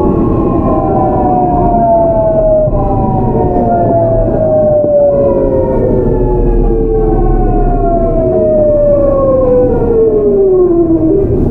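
GEC Alsthom GTO inverter drive of a Seoul Metro 8000-series train whining over the rumble of running gear. The whine is a stack of tones sliding steadily down in pitch, falling faster near the end, as the train brakes and slows.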